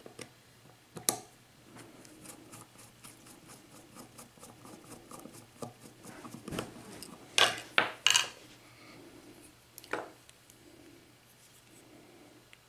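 Small metal lock parts clicking and scraping as a Schlage mortise cylinder is taken apart to get at its pins. A single click about a second in is followed by a run of light ticks. A few sharper metallic clicks come about two-thirds of the way through, and one more comes shortly after.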